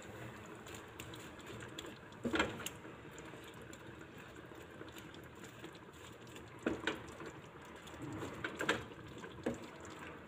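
Wooden spatula stirring chicken and mushrooms in a creamy sauce in a nonstick frying pan, with several short scrapes and knocks against the pan, the loudest about two seconds in.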